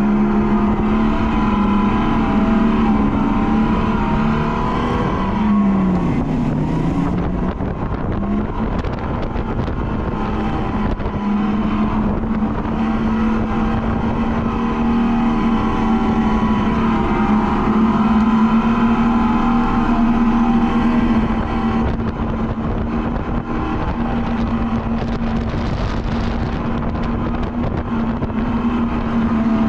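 RiMO electric go-kart motor whining steadily while driving, over a constant rushing noise. About six seconds in, the whine drops in pitch and then climbs back, as the kart slows and picks up speed again.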